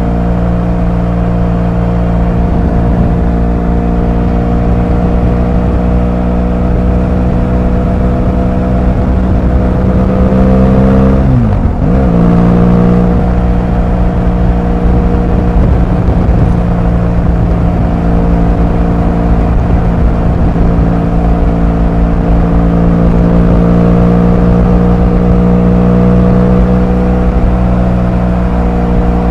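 Motorcycle engine and exhaust at a steady cruise, recorded on board. About halfway through the pitch dips sharply for a moment, then settles back to a steady run with slow, gentle rises.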